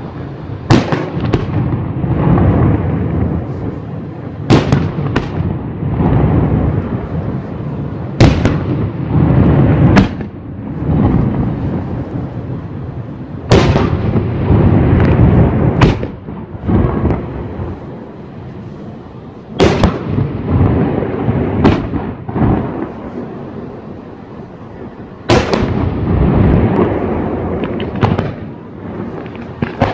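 Aerial firework shells bursting: about ten sharp bangs a few seconds apart, over a continuous rumble of further bursts in between.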